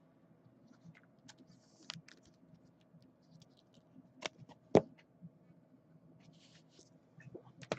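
Trading cards being handled: soft scrapes and rustles with a few sharp ticks, the loudest a little under five seconds in.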